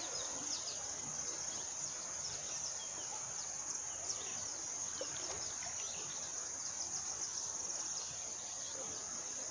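Steady high-pitched chorus of insects trilling without a break.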